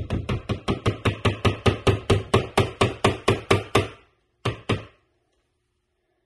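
Quick, even knocks, about four a second, of a resin bottle being tapped against the rim of a bucket to empty it, stopping about four seconds in, then two more knocks.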